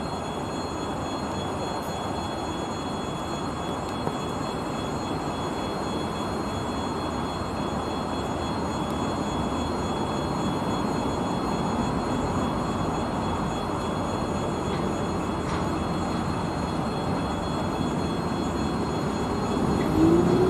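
2ES4K 'Donchak' twin-section DC electric locomotive moving off slowly with a freight train: a steady rumble and hum with a thin high whine, growing slowly louder as it draws closer. Near the end a louder tone sets in.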